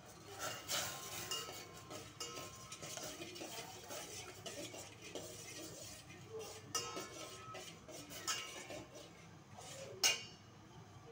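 Perforated stainless steel skimmer stirring sugar and saffron strands in water in a stainless steel pot, scraping and clinking against the pot's bottom and sides, with one sharp knock near the end.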